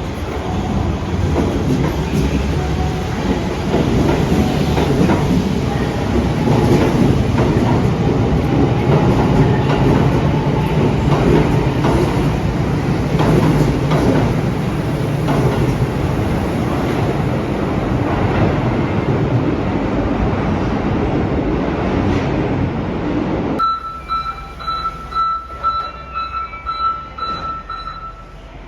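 Electric commuter train running along a station platform, a loud, dense rumble of wheels and motors with some wheel squeal. About 23 seconds in, this cuts off abruptly to a quieter background with a steady high-pitched beep lasting several seconds.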